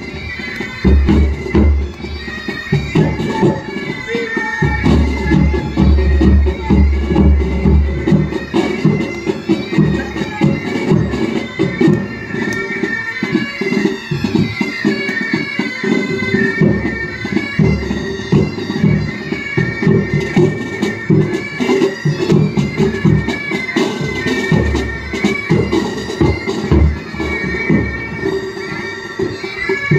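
Military pipe band playing: bagpipes carry a melody over their steady drones while side drums and a bass drum beat along. The bass drum is heaviest in the first eight seconds or so.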